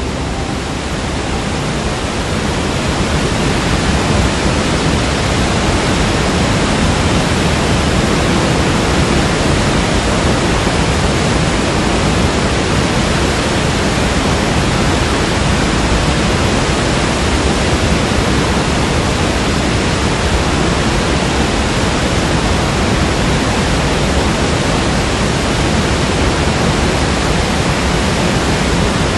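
Water flowing in a steady, full rush, growing a little louder over the first few seconds and then holding even.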